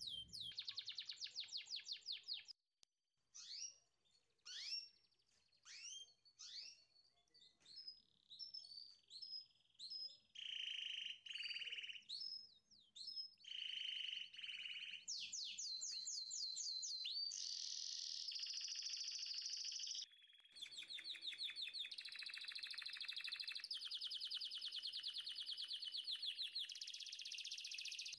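Small songbirds chirping and trilling: at first a few separate rising chirps about a second apart, then fast trills and chattering runs that go on almost without a break, pausing briefly near the two-thirds mark.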